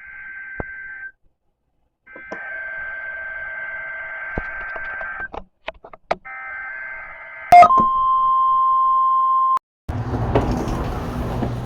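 Emergency alert broadcast tones, as on NOAA Weather Radio: three buzzy data bursts of the alert header, then a click and a single steady high alarm tone for about two seconds. A dense noisy mix begins near the end.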